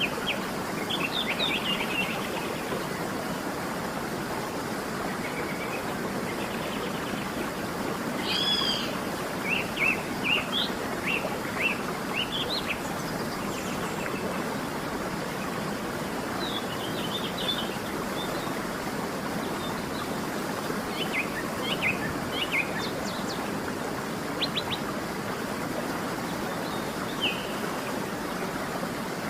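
Waterfall rushing steadily, with birds giving short chirps and calls on and off over it.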